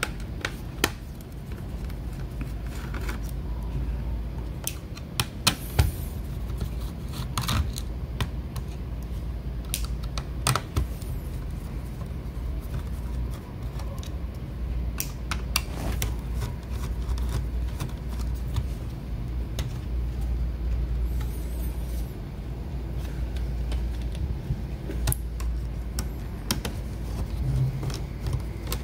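Scattered sharp clicks and taps of a screwdriver and plastic laptop panel being handled as the hard-drive bay of a laptop is opened, over a steady low hum.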